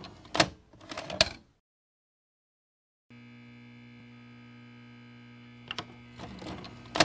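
Steady electrical buzzing hum, like the mains hum of an old TV or tape deck, cutting in suddenly about three seconds in after a moment of silence. Short clattering clicks and knocks in the first second or so, and again near the end over the hum.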